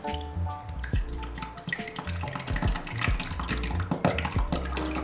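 Thick clabbered milk (prostokvasha) pouring from a pot into a cotton cloth bag, with uneven splashing and gurgling. Soft background music plays under it.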